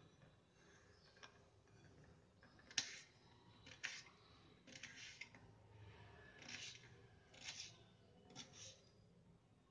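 Kitchen knife cutting a peeled potato on a plate: faint, short scraping strokes of the blade, roughly one a second.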